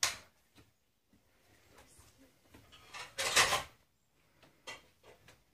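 A child clambering up onto a wooden upper bunk: a scraping rustle lasting under a second about three seconds in, then a couple of light knocks.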